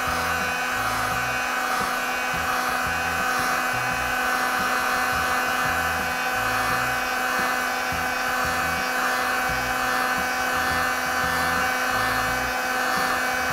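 Electric heat gun running steadily, a constant motor whine over the hiss of its blown air, as it heats a car emblem to soften the adhesive beneath it.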